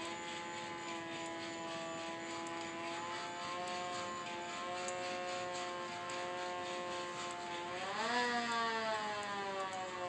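Hand-crank siren wailing at a steady pitch, then rising quickly about eight seconds in as the crank is spun faster and slowly falling again as it winds down.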